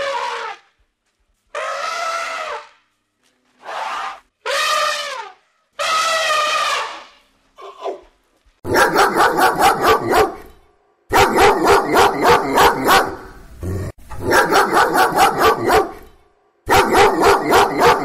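About six drawn-out, trumpet-like elephant calls, each falling in pitch at the end. Then a dog barking rapidly in four bouts of about five quick barks a second.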